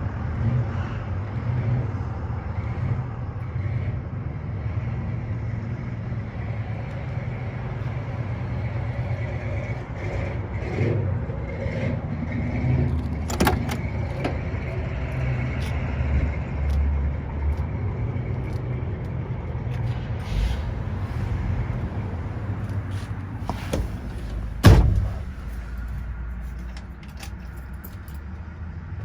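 Steady low rumble of a car, with a single loud thump near the end, after which it is quieter.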